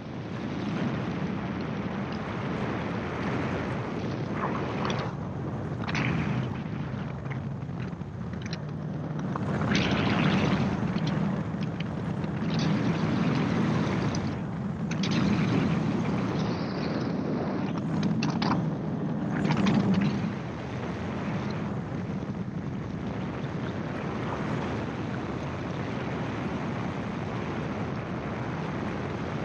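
Gyroplane's engine and pusher propeller running in flight, with wind rushing over the open cockpit. It gets louder for about ten seconds in the middle, with gusty rushes, then settles to a steady run.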